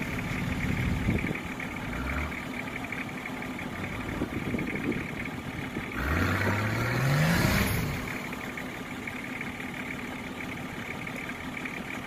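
Off-road 4x4 engine revving. There is a short rise in pitch about two seconds in, then a longer climbing rev from about six seconds that drops away near eight, over the steady running of the engine.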